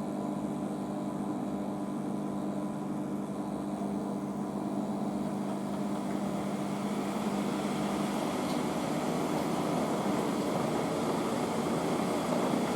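Front-loading washing machine speeding its drum up from the distribute into a fast spin, reckoned at about 800 rpm. A steady motor hum fades about eight seconds in while the rushing of the spin grows slowly louder.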